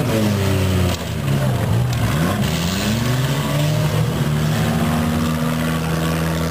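Engines of small demolition derby cars revving, several at once, their pitch rising and falling. In the second half one engine holds a steady pitch.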